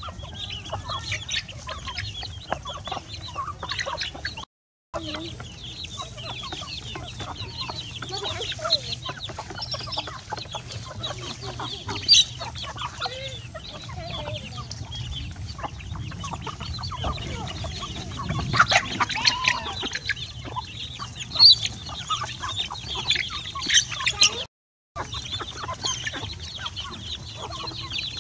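A flock of chickens clucking and young chicks peeping as they feed, many short overlapping calls with a few louder ones. The sound cuts out briefly twice.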